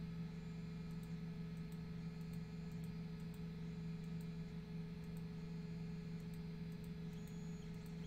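Steady low electrical hum, with a few faint scattered mouse clicks as spline points are placed.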